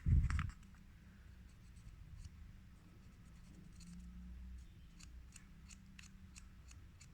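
A dull thump at the start, then faint scattered clicks and light scratching from small parts being handled, over a low steady hum.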